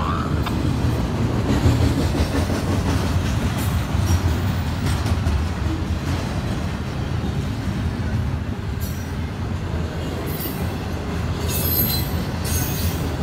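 Double-stack intermodal freight cars of a CSX train rolling past close by: a steady, loud rumble of steel wheels on rail. Near the end come a few short high-pitched bursts.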